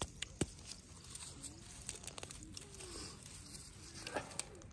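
Green garlic plants being pulled by hand from dry, cracked soil: a soft rustle of leaves with small sharp snaps and clicks of stems and clods, the loudest right at the start and again about four seconds in. A row of faint short low calls from some animal sounds in the background.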